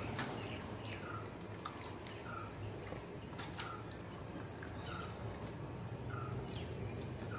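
Wet squelching and smacking of hands working thick masala paste into a whole raw chicken in a steel bowl. A short chirp repeats steadily about every second and a quarter over a low hum.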